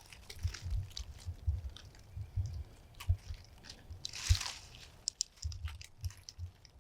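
Irregular soft crunching and rustling with scattered low thumps and clicks, and a brief louder rustle about four seconds in.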